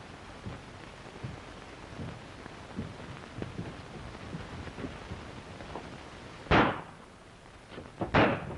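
Two sharp gunshots about a second and a half apart, the second louder, over the steady hiss of an early sound-film soundtrack with faint scattered knocks.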